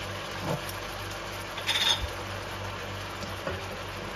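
Chicken breast sizzling in a wok, with a steady hiss, and a plastic slotted spatula scraping and knocking against the pan a few times, loudest about two seconds in. A low steady hum runs underneath.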